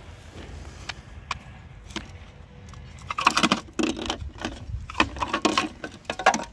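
Plastic casing of a battery pack of cylindrical lithium-ion cells clicking and rattling as it is pulled apart and handled, in quick clusters of clicks from about three seconds in, over a low wind rumble on the microphone.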